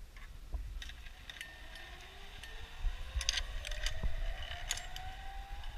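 Zip-line trolley running down the steel cable: a faint whine that rises steadily in pitch as the rider picks up speed, with scattered metal clinks on the platform.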